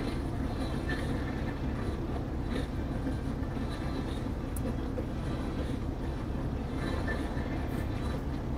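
A passenger ferry under way, its engines giving a steady low rumble.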